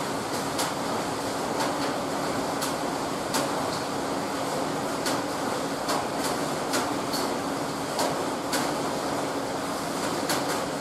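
Steady hum and hiss with a low steady drone, broken by scattered light clicks and taps as the wrap reel's metal swift and folding arm are handled and yarn skeins are lifted off.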